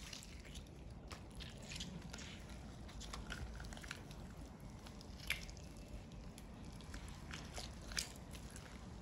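Whole roasted bucket chicken torn apart by hand: faint crackling of crisp skin and tearing of meat, with two sharper cracks about five and eight seconds in.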